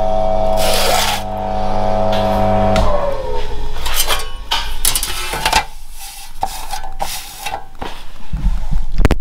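AP Lever guillotine running on its single-phase electric motor with a steady hum, and a shearing crunch about half a second in as the blade cuts 1.6 mm sheet. About three seconds in the motor stops and its tone falls as it winds down. Scattered metallic clanks and knocks follow, with a loud one near the end.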